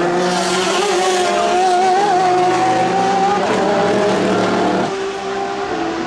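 Porsche 991 RSR race car's flat-six engine at full speed, a high steady engine note that dips in pitch about three and a half seconds in as the car lifts or shifts down. The sound changes abruptly about five seconds in to another engine note, slightly quieter.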